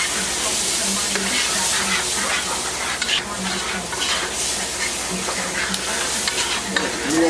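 Food sizzling in a hot skillet while a spoon stirs and scrapes through it, with a steady frying hiss and frequent short scrapes.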